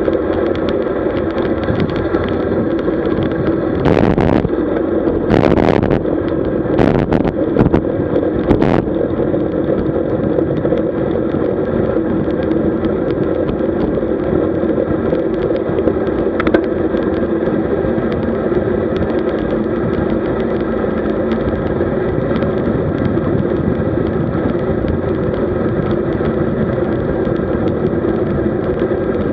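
Steady riding noise picked up by a camera on a road bike: wind and tyre noise, with several louder bursts about four to nine seconds in and a single sharp click later.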